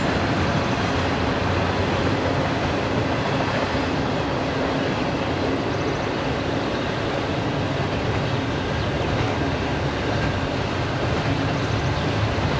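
Potato harvest machinery running steadily under load: a diesel engine's low drone beneath a dense, constant mechanical clatter.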